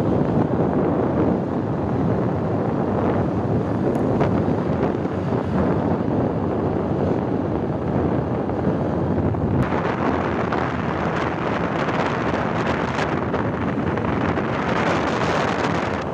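Wind rushing over the microphone on a moving motorbike, a steady rumbling noise that turns brighter and hissier about ten seconds in.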